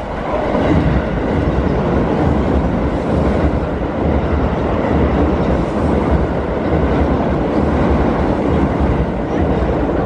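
Keio Line commuter train passing over a level crossing at close range: a loud, steady rumble and rattle of wheels on the rails that builds about half a second in and holds.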